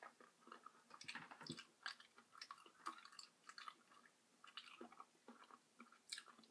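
Faint, close-up chewing of breaded fried chicken bites: a run of small, irregular mouth clicks.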